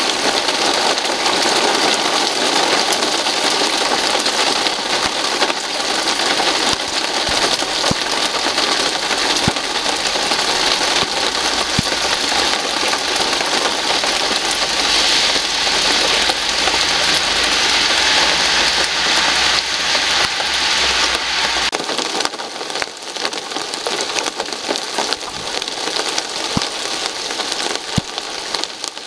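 Heavy rain pouring steadily onto leaves and paving, with water streaming and dripping off the branches.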